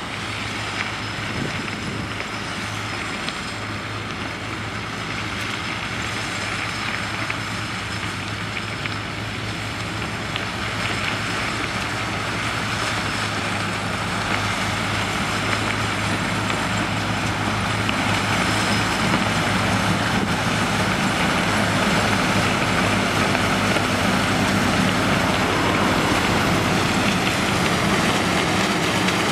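Sugar cane harvester and the tractor hauling its cane wagon running steadily as they cut and load cane: a dense mechanical din over a steady low engine hum, growing gradually louder.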